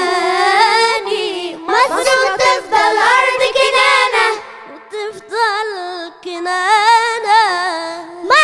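Children singing an Arabic song to oud accompaniment, a girl's voice leading with long, wavering held notes. There is a brief pause about halfway through, and the final held note ends right at the close.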